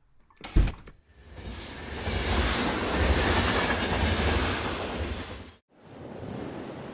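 Steam locomotive: a thump about half a second in, then a swelling rush of steam over a low rumble that cuts off suddenly about five and a half seconds in. Quieter, steady surf noise follows near the end.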